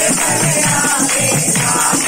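Devotional kirtan music: a quick, steady drum beat with singing over it.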